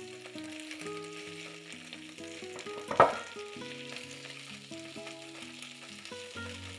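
Sauce-coated beef ribs sizzling in a grill pan, with a single sharp knock about three seconds in as the tongs strike the pan while turning a rib.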